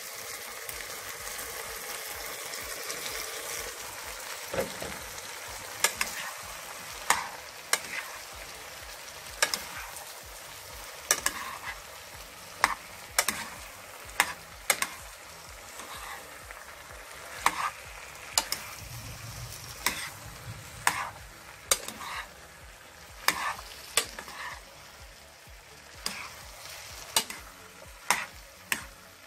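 Chopped conch and vegetables sizzling as they sauté in a pot and are stirred. The spoon clicks sharply against the pot at irregular moments.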